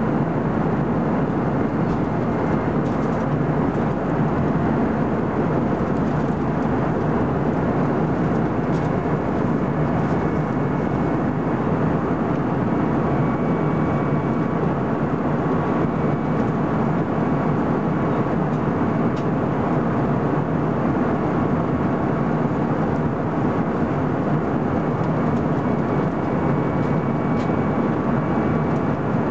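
Steady cabin noise inside an Airbus A320-214 in flight: the drone of its CFM56 turbofan engines and the rush of air past the fuselage.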